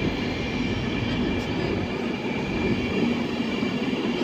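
Passenger train coaches rolling past at close range: a steady rumble of wheels on the rails, with a faint thin high whine over it.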